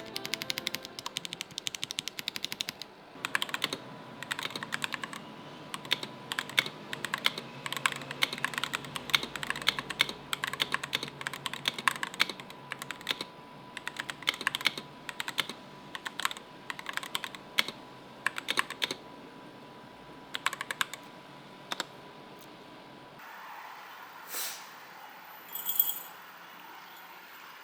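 Typing on a tape-modded Akko 5075 mechanical keyboard with Akko Silver POM linear switches and XDA-profile keycaps: a fast, dense run of keystroke clacks that thins to scattered presses after about nineteen seconds, then stops. Two brief sounds of another kind follow near the end.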